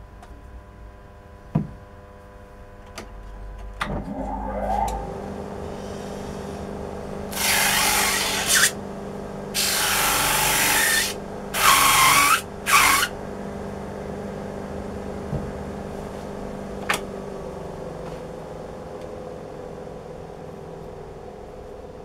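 Homemade disc sander's motor starting with a rising whine about four seconds in, then running steadily. A lump of cured silicone is pressed against the spinning sanding disc four times between about 7 and 13 seconds in, each a loud rasping rub as it cleans clogged grit from the disc. A couple of sharp clicks come later while the motor hum runs on.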